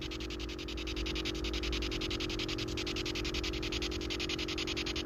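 Small handheld ghost-hunting device ('ITC Research Device') giving out a steady electronic noise through its speaker: a rapid, evenly pulsing static hiss over a low steady hum.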